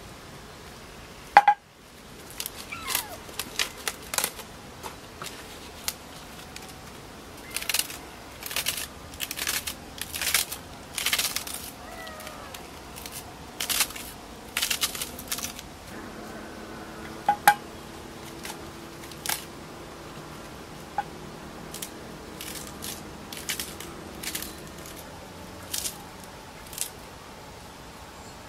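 Crisp lettuce leaves being torn and snapped by hand and cut with a knife into a bowl: an irregular run of short crunchy snaps, with a sharp click about a second and a half in.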